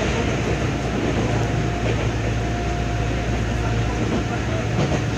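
Interior running sound of a Tokyo Metro 16000 series electric train: a steady low rumble of wheels on rail under loud, even air-conditioning noise. A faint steady whine sits over it for the first few seconds.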